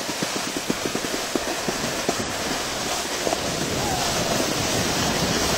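Skis sliding and scraping over snow, with wind on the microphone: a steady noise, with a rapid patter of short clicks in the first two seconds that grows a little louder from about halfway.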